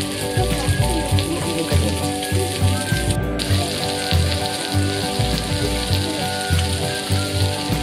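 Food sizzling on a hot griddle pan, with a dense crackling hiss that breaks off briefly about three seconds in. Background music with a steady beat plays at the same time.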